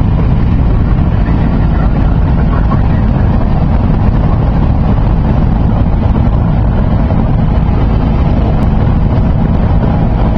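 A Cessna's piston engine and propeller running steadily in flight, heard from inside the cabin, with wind noise over it.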